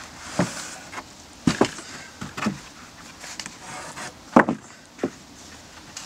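Freshly sawn white pine boards being handled and laid on a stack, knocking against each other in a string of wooden clunks, the loudest about four seconds in.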